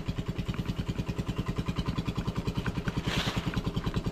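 A small engine idling steadily, with a rapid, even pulse and a short hiss about three seconds in.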